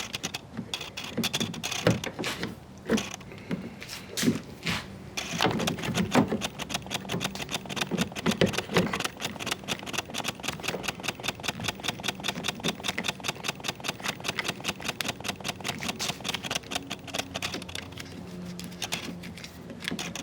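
Scattered knocks and handling of metal parts, then a long run of rapid, evenly spaced clicks from a ratcheting hand tool, several a second, stopping near the end.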